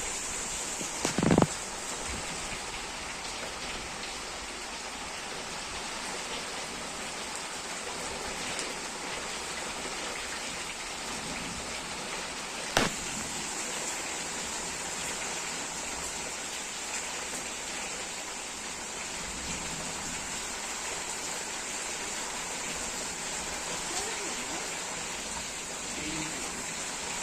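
Heavy rain falling steadily, an even hiss of rain on surfaces. A sharp knock sounds about a second in and another about halfway through.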